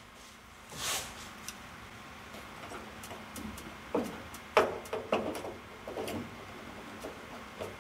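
Light clicks and taps of small metal lock parts being handled and fitted by hand into a car's trunk-lid lock linkage. A few of them are scattered through the second half, after a soft rub about a second in, over a faint steady hum.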